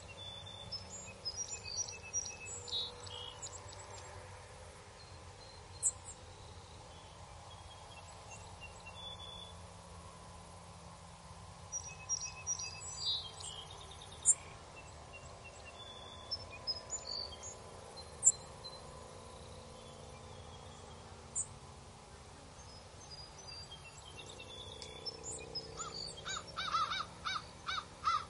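Birds chirping with short, high, scattered calls over a faint steady hiss. Near the end comes a quick run of about seven harsher calls, roughly four a second.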